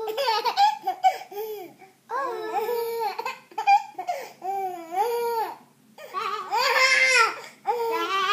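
A baby laughing hard in repeated bouts of high-pitched peals, with brief pauses for breath between them. The loudest bout comes near the end.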